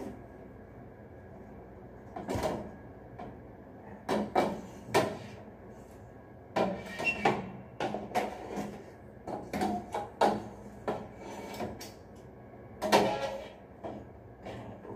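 Irregular knocks, bumps and rattles of a T8 LED tube and the elevator's ceiling light fixture being handled while a busted tube is taken out.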